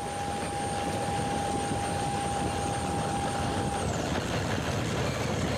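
Electric RC ground-effect vehicle, a winged 1/14-scale buggy with a brushed motor and a ducted fan, running over asphalt. A steady rushing noise is heard throughout, with a steady high whine that dips slightly and stops about four seconds in.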